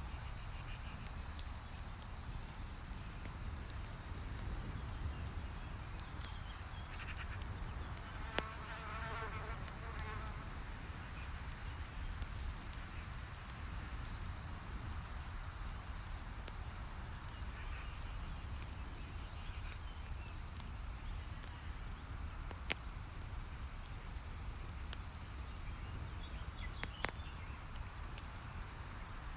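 Campfire crackling with a few sharp pops, over a steady low rumble. A fly buzzes past for about two seconds, around eight seconds in.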